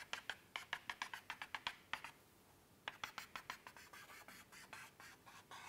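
Chalk on a blackboard tapping out short dashes in quick succession, several faint clicks a second, as a dashed circle is drawn; a pause of about a second comes near the middle, and the last strokes are softer and scratchier.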